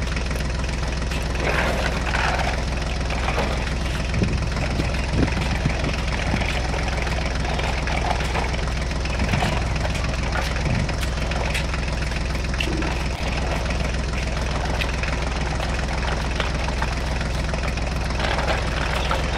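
Tractor engine running steadily with a deep, even hum, without let-up, as an engine sound for a toy tractor.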